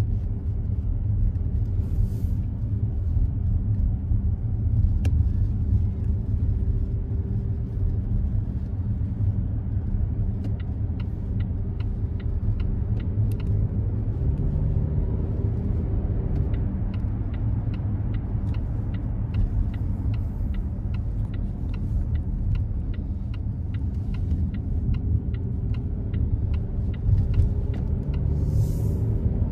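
Car driving through city traffic: steady low engine and road rumble, with a regular light ticking from about ten seconds in until near the end and a short hiss near the end.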